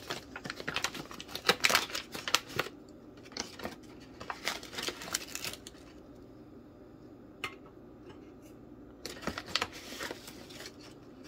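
Crinkling of a foil coffee bag and a metal spoon scraping and scooping ground coffee, in several bursts of rustling, with a single sharp click about two-thirds of the way through.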